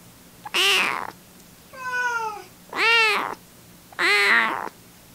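Young tabby-and-white kitten meowing, four meows about a second apart; the second is softer and falls in pitch.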